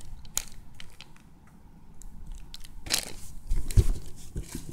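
Plastic wrapping crinkling and hands handling a foam squishy toy close to the microphone, with scattered crackles and a louder crinkle about three seconds in. Soft handling knocks follow shortly after.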